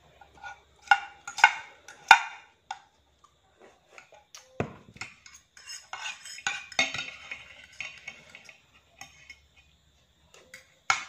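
A metal spoon and fork clink and scrape against a ceramic plate as the last sauce and noodle scraps are gathered up. There are a few sharp clinks early on, a dull thump near the middle, and a dense stretch of scraping later.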